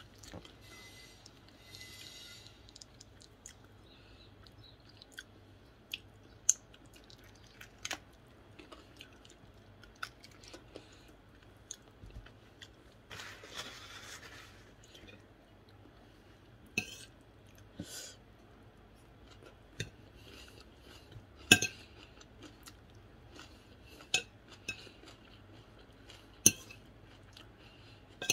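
Close-up chewing and mouth sounds of someone eating chicken by hand, with scattered small clicks. About halfway through a paper napkin rustles briefly, and later there are a few sharp clinks of a metal spoon against a plate.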